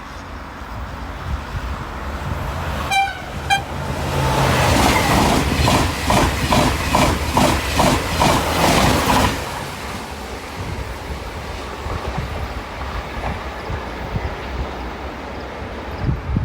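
A train passing close by: a short horn toot about three seconds in, then loud wheel clacks over the rail joints about twice a second for some five seconds, settling into a steady rolling rumble.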